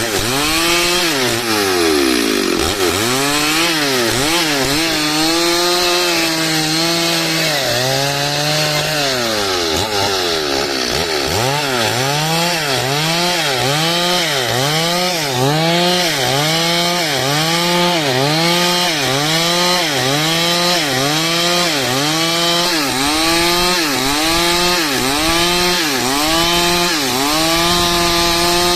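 Stihl chainsaw cutting dry wood at high revs. Its engine note dips under load and recovers over and over: slow and uneven at first, then in a steady rhythm about once a second, and it evens out near the end.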